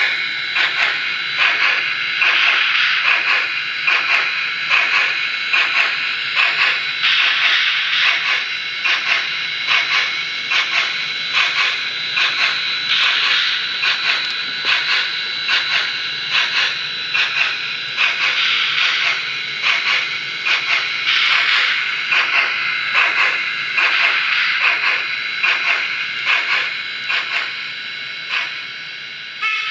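Soundtraxx Tsunami sound decoder in a Mantua HO-scale 2-6-6-2T logging locomotive, playing steam exhaust chuffs through the model's small speaker. The chuffs come in a steady, even rhythm over a continuous hiss.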